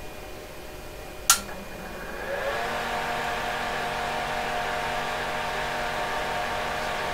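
A power switch clicks about a second in, then the PDP-11/03 chassis cooling fan spins up, rising in pitch, and settles into a steady whir as the machine powers on.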